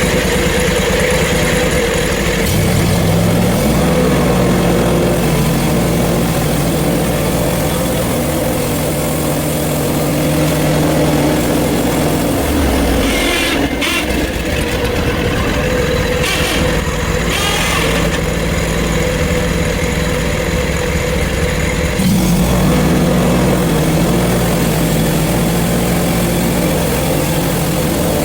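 Portable bandsaw mill's engine running steadily while the band blade saws through a hard sugar maple log, cutting it into slabs. The engine note shifts about two seconds in and again near the end, with a few brief hissy stretches in between.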